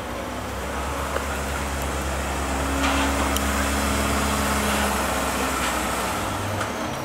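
Mitsubishi Delica D:5 minivan's engine working under load as it climbs a steep 45-degree ramp in four-wheel drive: a steady low drone that grows louder over the first few seconds and eases off about six seconds in.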